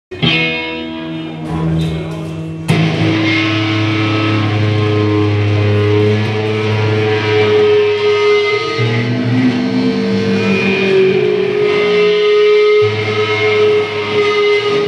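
Rock band playing live, opening with a ringing, strummed electric guitar chord; the band comes in sharply and louder about two and a half seconds in and keeps playing.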